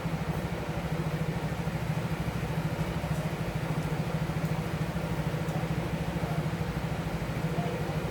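A steady low motor hum with a rapid, even pulse that doesn't change.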